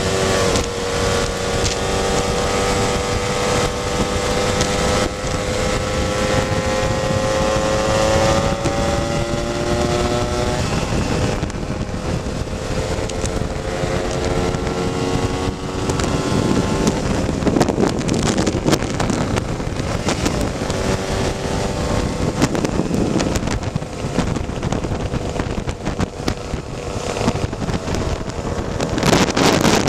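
Two-stroke Lambretta scooter engine running while riding downhill, its pitch rising slowly over the first ten seconds. After that it is mostly buried under wind rushing over the microphone, which gets louder near the end.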